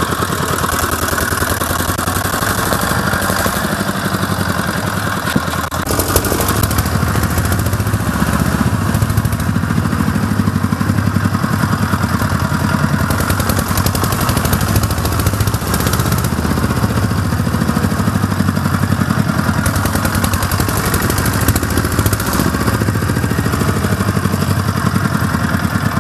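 Small engine of an off-road quad-type vehicle running steadily, its rapid firing pulses mixed with rattling, with a brief dip in level about six seconds in.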